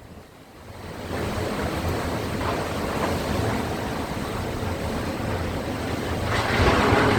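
Sea surf and wind: a steady rush of noise that builds over the first second and swells louder near the end.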